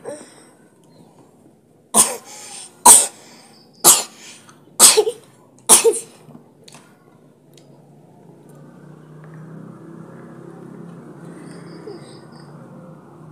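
A person coughing five times in a row, about one short, sharp cough a second.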